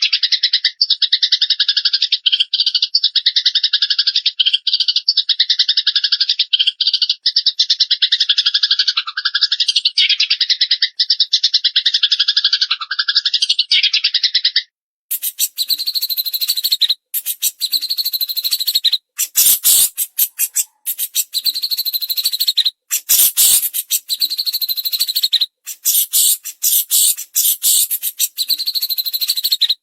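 Recorded songbird tutor track of cililin and Eurasian tree sparrow: a very fast, buzzy trill runs without a break for about the first half. Midway it cuts abruptly to a different recording of sharp, rapid chirps and clicks, with a couple of dull thumps.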